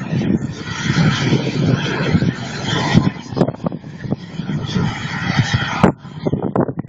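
Turbine engines of RC model jets making a high-speed pass: a steady rushing jet noise with a hissing upper edge. It drops away suddenly near the end.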